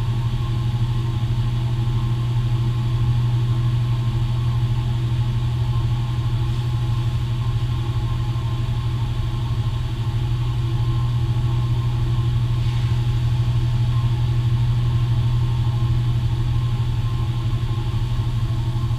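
Woodshop dust collector running with a steady low hum.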